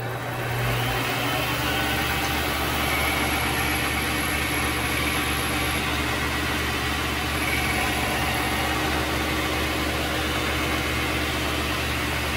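Vevor MX400 mini lathe switched on, its motor and spindle starting abruptly and then running steadily with a hum and a high whine.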